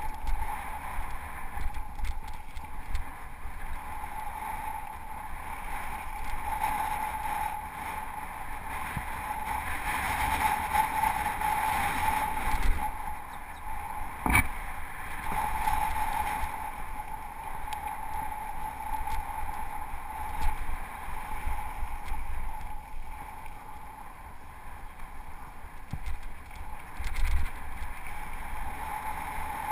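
Mountain bike riding down a dirt singletrack: wind on the microphone and a steady whir that swells and fades, with the bike rattling and thudding over bumps and one sharp knock about halfway through.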